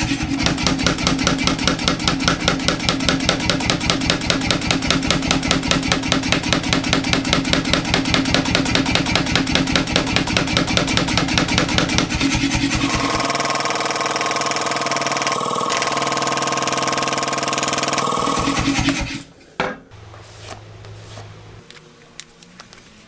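Power hammer fitted with a drawing die cover striking hot steel in rapid, evenly spaced blows for about thirteen seconds. The blows then stop and a steady machine hum with a held tone runs for several seconds before cutting off sharply, leaving much quieter sound with a single click.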